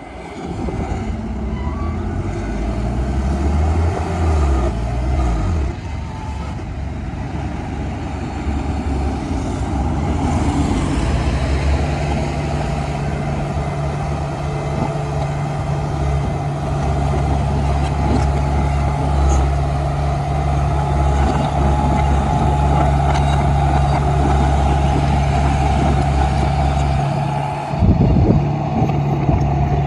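Komatsu D31P bulldozer's diesel engine running while working. Its pitch rises and falls over the first few seconds, then it holds a steady note for a long stretch before the note drops and changes near the end.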